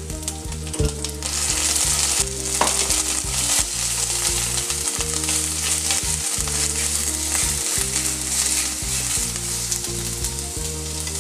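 Ground ginger sizzling in hot oil in a clay pot, a steady frying hiss, while it is stirred with a spoon that clicks and scrapes against the pot. This is the ginger being sautéed for the curry base.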